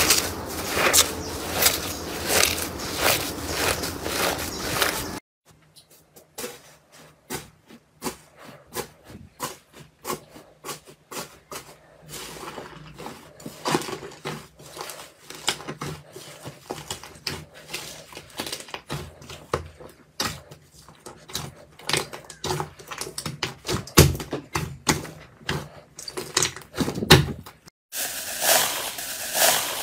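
Hands squishing and tearing slime in a glass bowl. It starts with dense crackling as cloud slime is broken apart. After about five seconds it turns to quieter sticky pops and clicks as a fluffy slime is stretched, over a faint low hum. Near the end there is dense crackling again as a hand presses into foam-bead slime.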